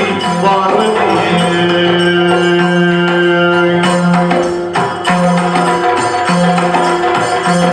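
Yakshagana ensemble music: a chende drum struck with sticks and a hand-played maddale drum keep up a busy rhythm, with jingling metal and a long held melodic note over them, broken into shorter phrases in the second half.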